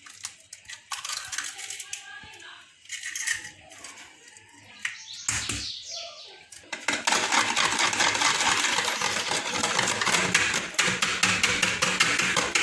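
A few sharp taps and cracks of eggs being broken into a bowl, then from about seven seconds in a dense, steady rattle of eggs being beaten fast in a bowl.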